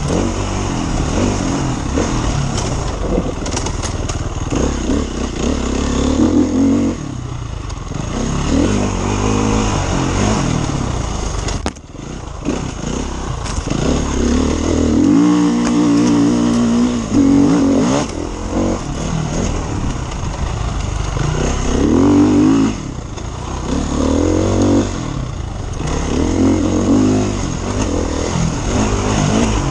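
KTM enduro motorcycle engine, heard from the rider's seat, revving up and down again and again as the throttle is worked and gears change on a rough dirt trail. The throttle is briefly chopped about twelve seconds in.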